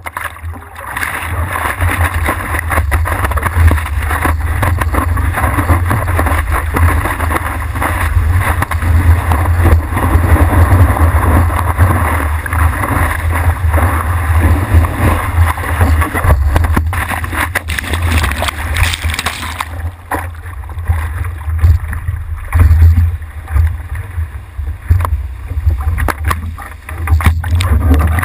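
Rushing whitewater and sloshing water against a surfboard-mounted camera's waterproof housing as the board paddles into and rides a broken wave, with heavy low buffeting throughout. The rushing is loudest and steadiest through the ride and turns choppier and less bright about twenty seconds in, as the ride ends.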